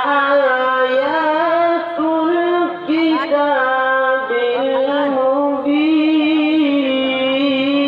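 A man reciting the Quran in the melodic qirat style over a public-address system: long held notes with small ornaments, broken by short pauses about two and three seconds in.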